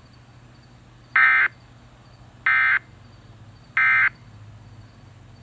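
Emergency Alert System end-of-message data bursts over FM radio: three short, loud digital screeches about 1.3 s apart. They mark the end of the alert.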